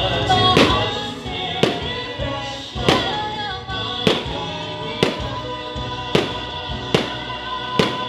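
Aerial fireworks going off in a steady series, a sharp bang with a short echo about once a second, eight in all, over loud music playing throughout.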